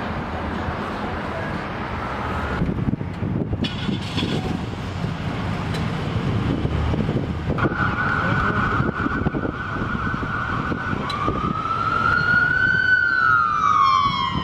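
A siren sounding: a steady high wail from about halfway in, then rising and slowly falling in pitch near the end, over steady outdoor rumble.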